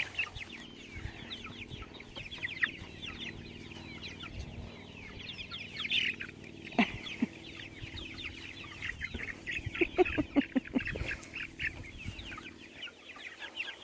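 A flock of young chickens clucking and peeping without a break, many short falling calls overlapping, with a few sharp knocks about seven and ten seconds in.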